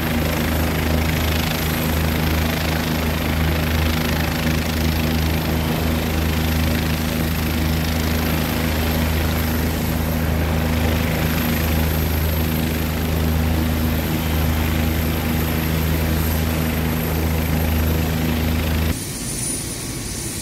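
OH-58D Kiowa Warrior helicopters running: a steady beat of rotor and turbine noise with a low hum. The level drops suddenly near the end.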